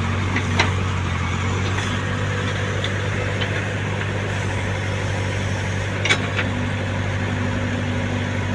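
Heavy diesel engine idling steadily, with a couple of short metallic knocks, one about half a second in and one about six seconds in.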